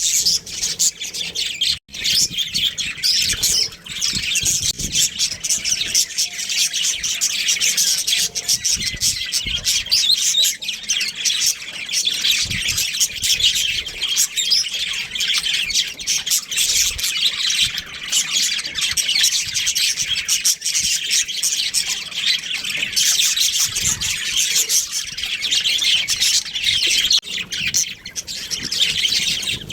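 Budgerigars chirping and chattering in a dense, continuous stream of short, high chirps and squawks, with a brief break about two seconds in.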